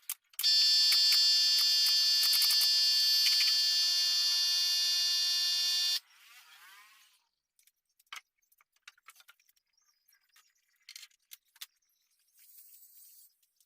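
A small electric power tool's motor running at full speed with a loud, high-pitched steady whine for about five and a half seconds, then switched off and winding down. Light scattered clicks follow.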